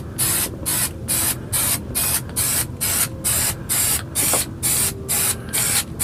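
Aerosol can of spray contact cement spraying in short bursts, about two a second, with brief gaps between them.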